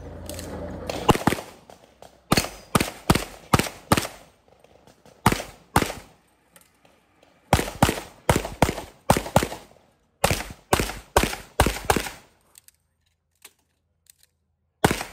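Compensated .38 Super Open-division race pistol fired in rapid strings of pistol shots, several quick shots to a string with short pauses between strings, then a brief lull before a final pair near the end.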